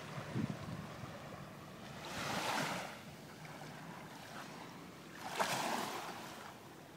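Small Lake Michigan waves breaking and washing up the sand at the water's edge: two surges, about three seconds apart, the second starting with a sharp slap. A brief low rumble comes near the start.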